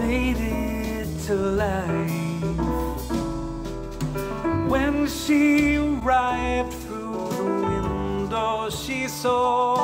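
Music with a wavering, vibrato melody line over sustained chords and bass, played back through a pair of Kali LP-6 studio monitors and then, partway through, through Adam Audio T7V monitors, recorded by a microphone in the room.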